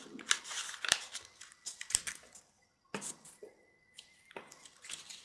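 Origami paper crackling and rustling as fingers fold it and pull out its corners, in short irregular bursts with brief pauses.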